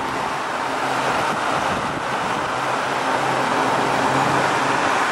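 Fan of a Roper/Whirlpool 5000 BTU window air conditioner running on fan-only, with the compressor off: a steady rush of moving air over a faint motor hum, growing louder until about a second in as the fan comes up to speed. It is being run to check that the fan motor works after cleaning.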